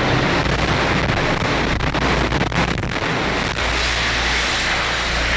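Loud, steady rushing noise on a handheld camcorder's microphone as it is carried on the move, with a few sharp knocks about two to three and a half seconds in.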